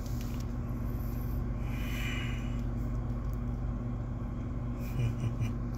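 Steady low hum and rumble of a car's cabin, with a soft hiss rising briefly about two seconds in.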